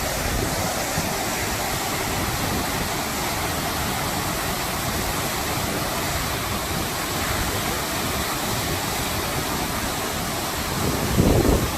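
Waterfall rushing steadily, heard close by as a dense, even wash of falling water. Near the end there is a brief louder swell.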